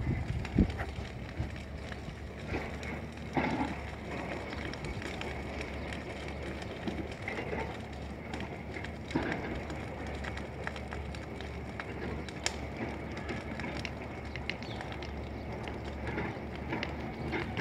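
Dry bush fire burning, with irregular crackling and popping over a steady outdoor rumble and a few louder knocks.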